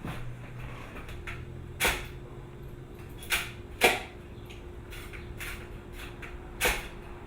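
Handling noises: four sharp clicks and knocks spaced over several seconds, over a faint steady hum.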